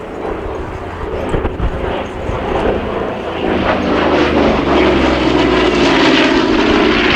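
Douglas A-26C Invader's twin Pratt & Whitney R-2800 radial engines and propellers droning in flight, growing louder over the second half.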